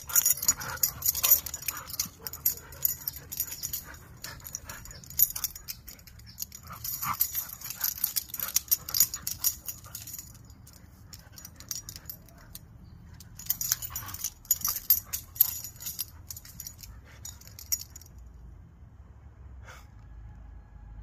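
Two Siberian huskies playing and vocalizing at each other in irregular bursts that die down near the end.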